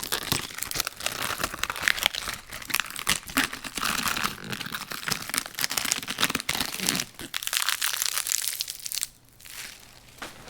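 Lettuce leaves being peeled from a head: dense, crisp crackling and tearing that eases off about seven seconds in, leaving a brief pause and a few faint crackles.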